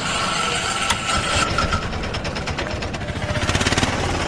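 Motorcycle engine running while riding in street traffic, with road and wind noise. A steady high tone sounds for the first couple of seconds, then stops.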